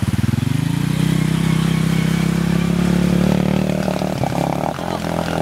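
Honda 67 motorcycle engine revving up about half a second in, then running steadily under throttle, with a higher engine note coming in about four seconds in.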